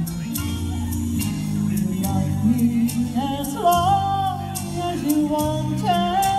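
A woman singing into a microphone through a PA, holding and gliding between notes over backing music with a steady drum beat.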